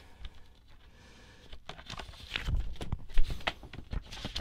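Paper and cardboard being handled: a cardboard LP jacket is opened and a folded paper puzzle poster is pulled out and unfolded, giving irregular rustles and light knocks that start about a second and a half in, with one sharper tap about three seconds in.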